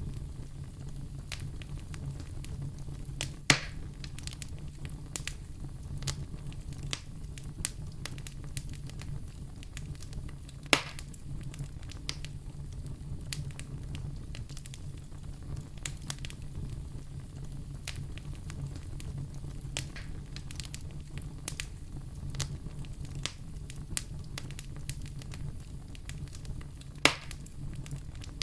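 Wood fire crackling, with many small snaps over a steady low rumble and three sharp, louder pops spread through.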